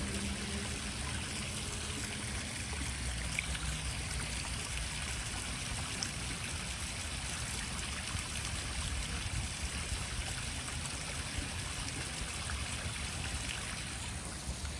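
Small stone waterfall splashing steadily into a garden koi pond, with a low rumble underneath.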